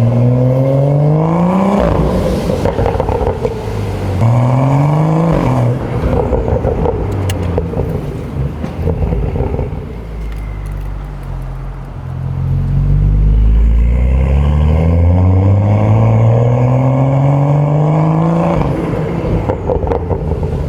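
BMW M235i's turbocharged inline-six (N55) accelerating hard. The revs climb in two short pulls near the start, each cut off by a shift or a lift, then settle lower before a long, slower climb that breaks off near the end.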